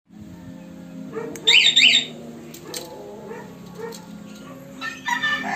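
Yamaha motorcycle alarm giving two short, loud, high-pitched chirps about a second and a half in, each sweeping quickly up and down in pitch. A rooster starts crowing near the end.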